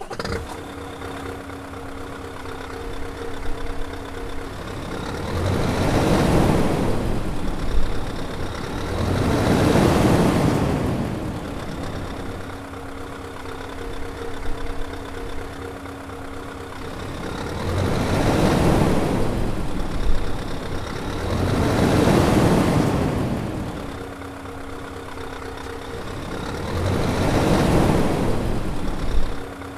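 Scania 770 hp V8 diesel engine idling and being revved up and let back down five times. Each rev rises and falls over two to three seconds before it settles back to idle.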